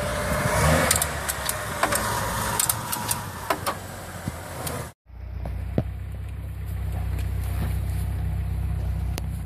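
Lada Niva's engine running as it sits in a shallow stream, with scattered clicks and knocks. About five seconds in the sound cuts out suddenly and gives way to a steady low engine drone from an off-road vehicle driving along a forest dirt track.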